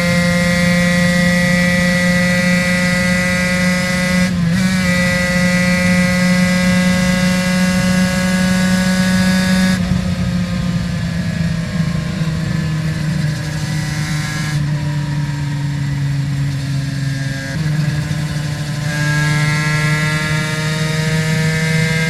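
Aprilia RS 250's two-stroke V-twin with Arrow exhausts under way. Its pitch climbs through the revs, with a quick gear change about four seconds in, then falls steadily as the throttle is eased off, and rises again near the end.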